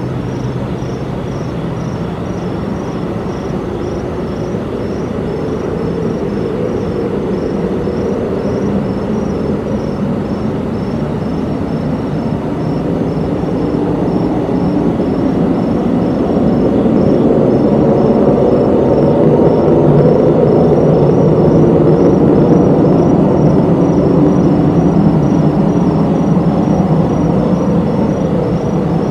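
Unidentified low droning hum made of several steady tones, swelling louder about halfway through and easing slightly near the end: the strange noise that residents reported hearing.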